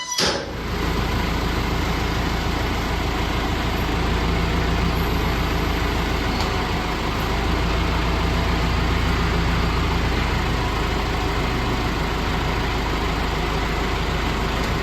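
A motor vehicle engine running steadily, with a heavy low rumble that starts suddenly and holds level.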